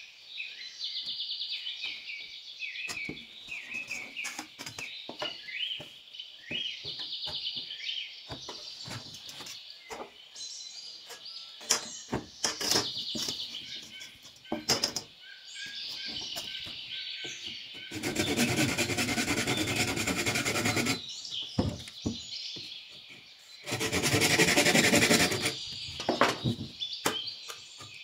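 Birds chirping over the knocks and taps of building work. Two longer bursts of loud, dense noise come about two-thirds of the way in, the first about three seconds long and the second about two.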